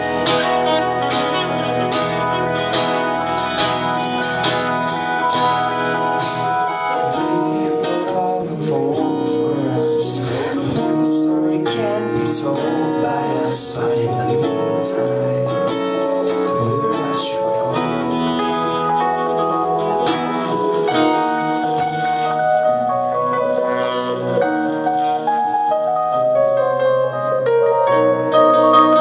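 Live band playing an instrumental passage, with acoustic guitar, electric bass, keyboard, saxophone and drums.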